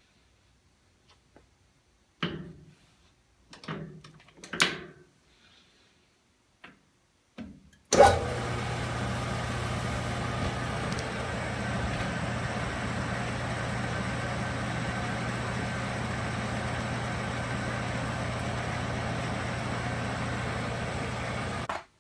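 A few scattered knocks and clatter of metal being handled, then a shop machine switches on with a sharp click about eight seconds in. It runs as a steady hum with a hiss and stops abruptly near the end.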